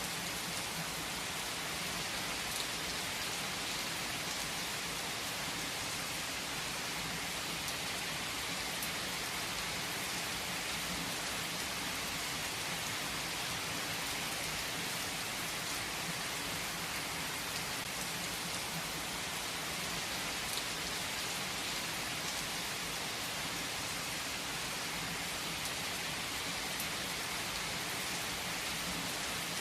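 Steady rain falling: an even hiss with no let-up, with a few sharper drop ticks here and there.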